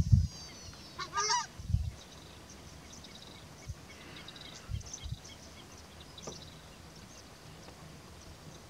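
Southern screamer giving one loud, short call about a second in, then quiet. A few low thumps come near the start and again around the middle.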